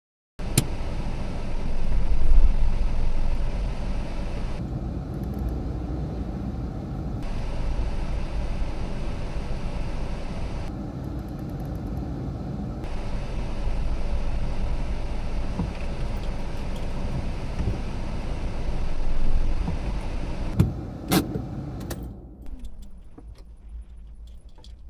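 A Vauxhall car's engine running, with road rumble heard from inside the cabin as the car moves, and a couple of sharp clicks near the end. About 22 seconds in the rumble drops away as the engine is switched off.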